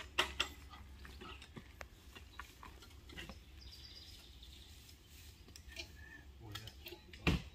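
Scattered light metal clinks and knocks from a steel driveway gate being handled and adjusted at its hinge post, with one sharper, louder knock near the end. Faint bird chirping about halfway through.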